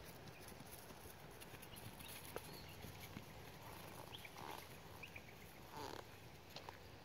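Very faint, distant footfalls of a ridden horse on a sand arena, with a few soft, brief sounds.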